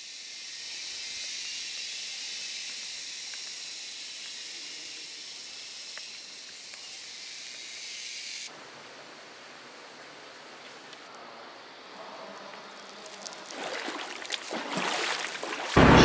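Steady high-pitched hiss of a rainforest insect chorus, which cuts off abruptly about halfway through and gives way to a quieter hiss. Rustling builds up near the end.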